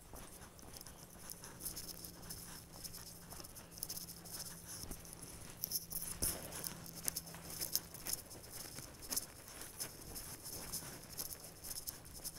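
Faint, irregular crunching and rustling of footsteps on dry leaves, grass and dirt along a trail.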